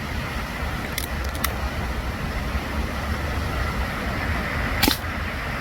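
Steady low outdoor rumble, with two short sharp clicks about a second in and a louder sharp click near the end.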